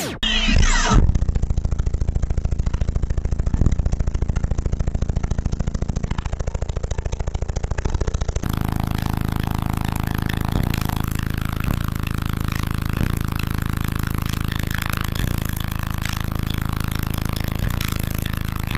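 Car audio system's sixteen Sundown NSV4 12-inch subwoofers playing bass at very high level inside the vehicle. It starts as a fast pulsing bass beat, and after a cut about eight seconds in it becomes a steady low bass tone.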